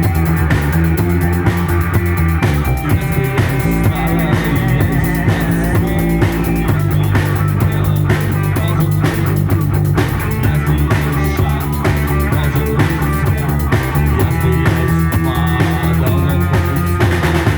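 Rock music: guitars over a bass line and drums keeping a steady beat.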